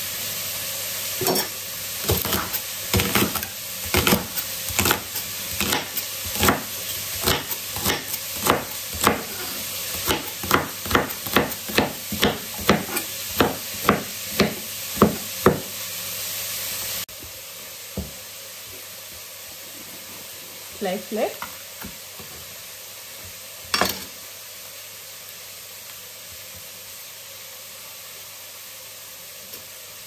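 Chef's knife chopping asparagus on a cutting board, quick sharp strikes at about two a second that speed up, over a steady sizzle of vegetables frying in olive oil in a pot. The chopping stops abruptly about halfway through, leaving a quieter hiss with a single knock.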